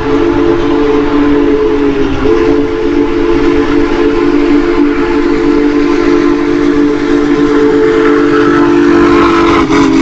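Train horn sounding one long, loud multi-note chord over rushing rail noise, dipping briefly about two seconds in and dropping slightly in pitch near the end as it passes.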